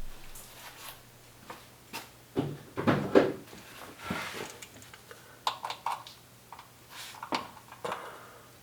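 Hand tools and parts being handled while getting ready to drain the engine oil: scattered light clicks and knocks, with a cluster of louder ones about two and a half to three seconds in.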